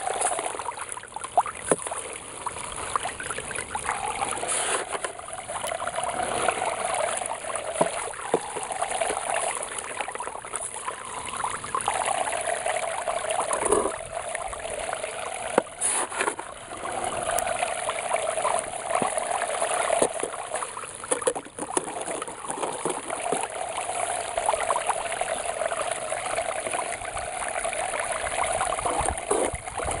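Water from a sump pump's discharge hose pouring steadily down a sluice box, a continuous splashing rush. Occasional short knocks and scrapes of a scoop digging concentrates from a plastic bucket and dumping them into the flow.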